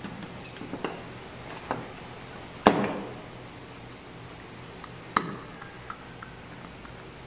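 Knocks and clicks of hard plastic wiring parts and a screwdriver being handled. There are a few light taps, one loud knock with a short ring a little under three seconds in, and another sharp knock about five seconds in.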